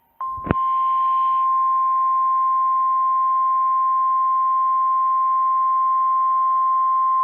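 NOAA Weather Radio's 1050 Hz warning alarm tone, sent as the weekly test of the receivers' alarm. It is one steady, unbroken, loud tone that starts just after the opening, with a brief click about half a second in.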